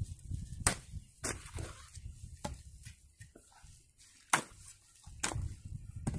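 A hoe chopping into and turning wet clay mud, a sharp strike about every second.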